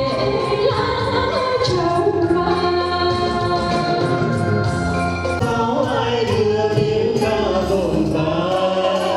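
Music: a song sung by a choir of voices over instrumental backing with a steady beat.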